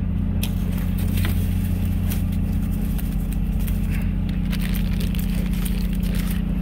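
Steady low drone of a fishing vessel's running machinery, with scattered light crackles and scrapes over it.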